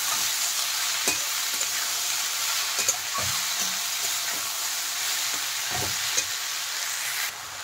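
Chopped water spinach and potatoes sizzling in hot oil in a metal kadai as a steel spatula stirs them, with now and then a faint scrape or tap of the spatula on the pan. The sizzle drops off suddenly near the end.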